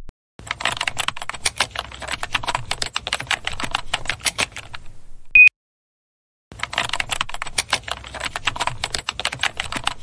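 Rapid typing on a laptop keyboard, broken about five seconds in by one short, high smoke-detector beep. The typing stops for about a second after the beep, then starts again.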